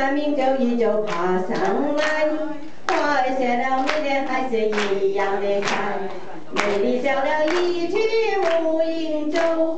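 A woman singing into a handheld microphone, with a group of people clapping along in time.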